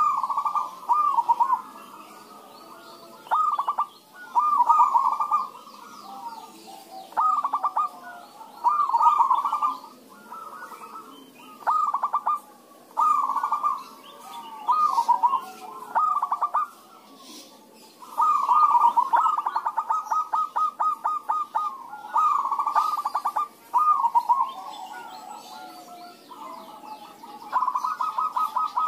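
Several zebra doves cooing back and forth in short phrases of rapid notes, one phrase every second or two, with a longer unbroken run of notes about two-thirds of the way through.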